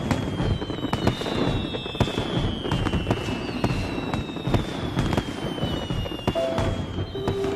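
Dense crackling with scattered sharp bangs and several long, slowly falling whistles, a soundtrack effect of the fireworks kind. A few held music notes come in near the end.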